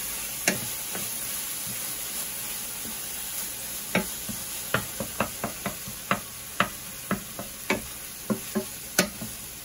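Wooden spatula stirring an onion-tomato masala frying in a stainless steel sauté pan. A steady sizzle runs under sharp knocks of the spatula against the pan, which come thick and fast from about four seconds in, a few a second.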